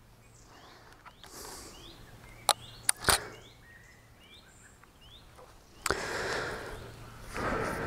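Faint, repeated short bird calls over quiet outdoor background noise. Three sharp clicks about two and a half to three seconds in, from the camera being handled, and rustling from about six seconds in as the man steps round in front of the camera.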